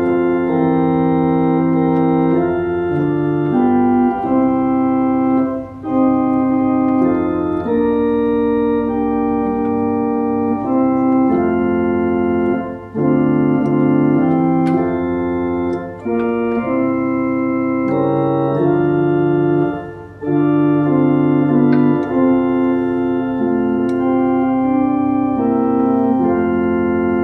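Two-manual organ played in sustained chords over a held bass line, the chords changing every second or two, with short breaks between phrases.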